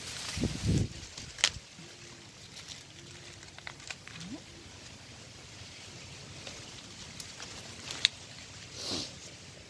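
Baby monkey eating kernels off an ear of fresh corn in its husk: rustling of corn husks and leaves, with two sharp cracks, one early and one near the end, and a brief rustling swish just before the end. A short low thump comes near the start.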